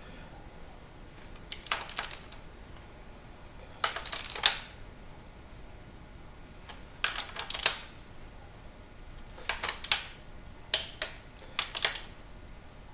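Click-style torque wrench ratcheting and clicking as it tightens the connecting-rod nuts of a Ford 289 V8 to torque, heard as about six short bursts of metallic clicks a second or two apart.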